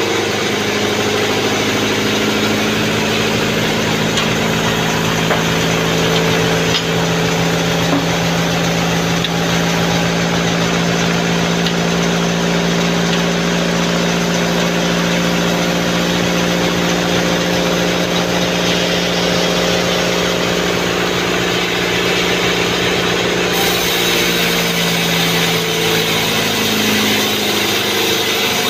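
Sawmill band saw machine running steadily, a constant engine-like hum whose pitch shifts slightly near the end.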